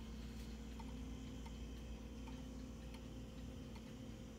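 Antique Gustav Becker two-weight wall clock ticking faintly, its pendulum escapement giving small, evenly spaced ticks over a low steady hum.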